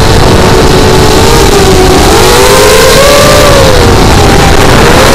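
FPV quadcopter's electric motors and propellers whining, several close pitches rising and falling together with the throttle, over a loud rush of wind on the drone's onboard microphone.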